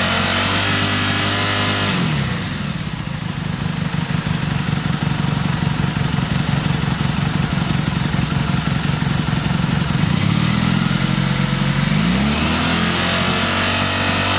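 Motorcycle engine revved up during a stator AC output test: held at raised revs, let down to idle about two seconds in, idling steadily, then revved up again near the end and held.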